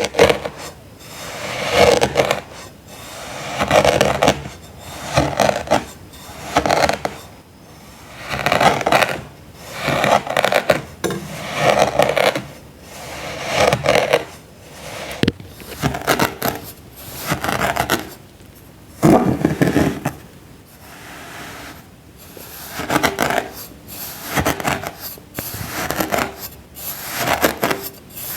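Crunchy, gritty cuts into packed sand with a hand tool, repeated roughly once a second, each cut a short scrape with crumbling, with a brief lull about three-quarters of the way through.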